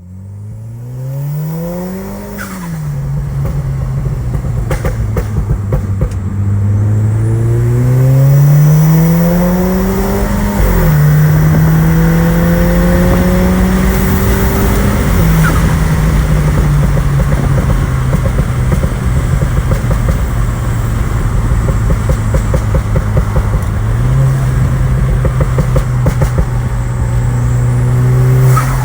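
Car engine revved up twice, then held at steady raised revs, with many sharp exhaust crackles and pops.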